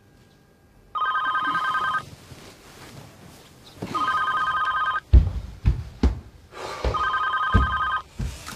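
Telephone ringing with a fast warbling trill, three rings of about a second each, roughly three seconds apart. Several dull thumps come between and after the last two rings.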